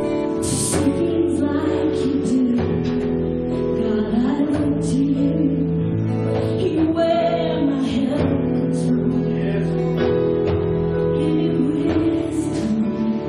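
Live church worship band playing a song, with singing over guitar accompaniment and sustained held notes.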